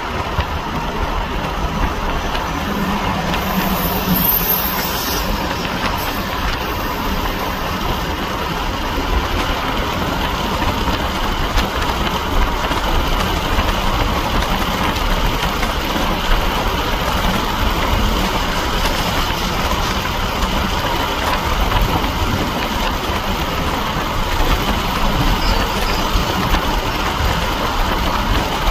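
Steady, even rumble of vehicle running noise with no distinct clanks, horn or other events.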